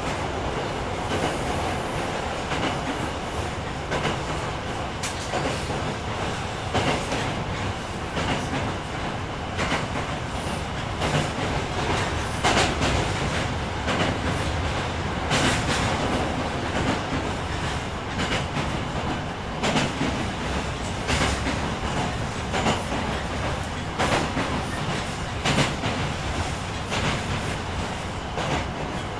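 Osaka Municipal Subway 66 series train running along the line, with a steady rumble of running noise and the wheels clicking over rail joints again and again at uneven intervals.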